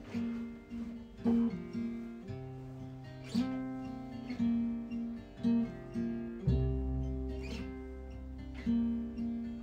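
Instrumental passage of guitar and bass: the guitar plucks notes in a slow, ringing pattern, and a deep bass note comes in about two-thirds of the way through.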